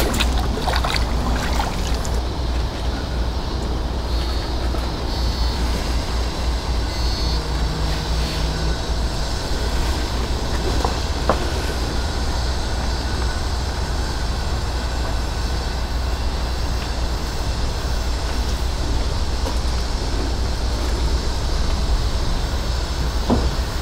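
Wind buffeting the microphone: a steady low rumble with a light hiss over it.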